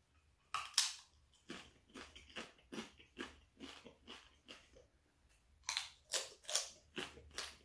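A person biting into a thin, crisp tortilla chip, with a sharp crunch just under a second in, then chewing it with short crunches about three a second, a louder run of them near the end.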